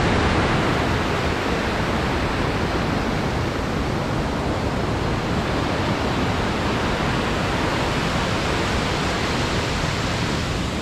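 Loud, steady rush of a fast-flowing burn tumbling over rocks and waterfalls in white water.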